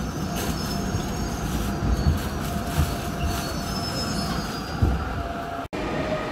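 Incheon Line 1 metro train braking to a stop in a station, heard from inside the car: low running rumble with a few knocks and a thin steady squeal over it. The sound breaks off abruptly near the end and gives way to a steadier hum.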